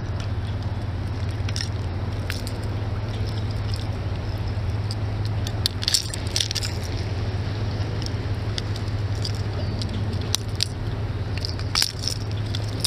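Scattered sharp metallic clicks and rattles of fishing pliers and a crankbait's hooks while a smallmouth bass is unhooked, with a small cluster of clicks about six seconds in. A steady low hum runs underneath.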